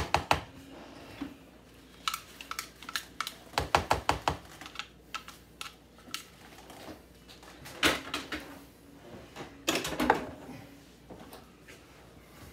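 A spoon tapping and scraping against a dish, with quick runs of clicks at about six a second, then a few separate, sharper knocks.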